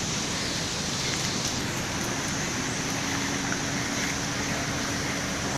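Steady rush of falling water from a waterfall, an even hiss with no breaks; a faint low hum joins about halfway through.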